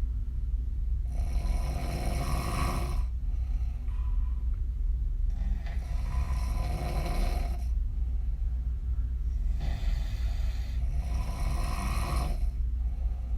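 A woman snoring on her back with her mouth open: three long snores, each lasting two to three seconds, about four seconds apart, over a steady low hum.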